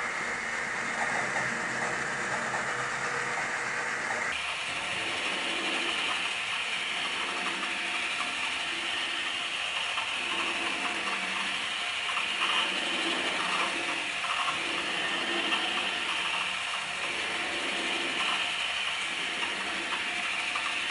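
Motor-driven two-turntable drawing machine running, a steady mechanical whir from its rotating discs and linkage. The sound changes abruptly about four seconds in, then pulses about every two seconds.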